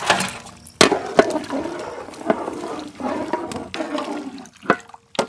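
Raw mutton pieces tipped into a large pan of hot liquid, then a big pot of gravy boiling while stirred with a wooden paddle: a steady watery bubbling and splashing, broken by a few sharp knocks.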